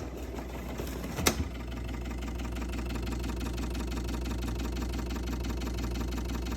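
Refrigerator machinery running with a steady low hum and a fast, regular pulsing, with a sharp click about a second in.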